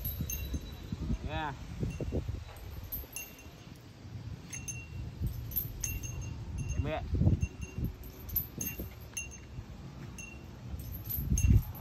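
Small bell tinkling in short irregular rings as the elephant walks, over low rumbling wind and handling noise on the microphone, which swells loudest near the end. A man's voice calls briefly about a second in and again around the middle.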